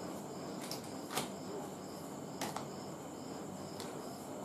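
Quiet room tone with a faint high-pitched chirp repeating about twice a second in the background, and a few soft clicks, the clearest about a second in.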